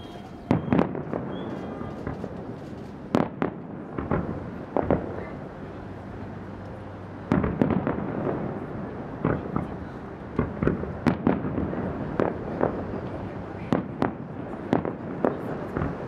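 Aerial fireworks shells bursting in irregular succession: about twenty sharp booms, each trailing off in an echoing rumble, with a brief lull a third of the way through.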